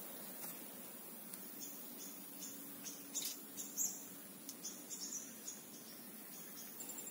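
Outdoor ambience of wildlife: many short, high-pitched chirps scattered through, loudest around the middle, over a faint steady high tone, with a quick run of ticks near the end.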